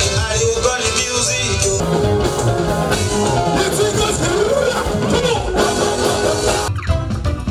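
Music with singing over a steady bass beat. The sound changes abruptly near the end, as at a cut.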